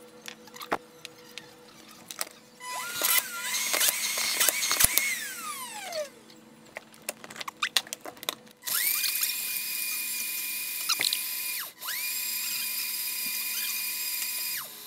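Sage 3X Bluicer Pro motor running: a first short run whose whine rises, then winds down in a falling glide. This is followed by two steady high-speed blending runs of about three seconds each, with a brief stop between them, blending a drink without vacuum.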